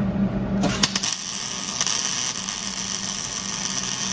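MIG welder tack-welding a steel caliper bracket onto a rear knuckle. The arc stutters on with a few sharp crackles, then hisses and crackles steadily for about three and a half seconds. The shielding gas is almost empty, so it is welding with next to no gas.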